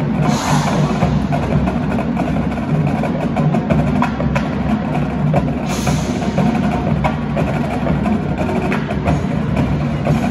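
Marching band playing, with the percussion to the fore: many sharp clicks and drum hits over the full band sound.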